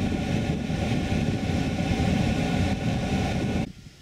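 Steady rumble of a moving vehicle, heard from inside it, that cuts off suddenly near the end.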